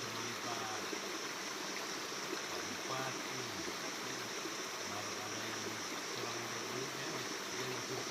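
Flowing water in a stream, a steady rush, with faint distant voices under it.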